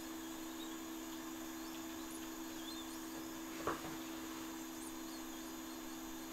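Steady low electrical hum over a faint hiss, with one short sharp click about three and a half seconds in.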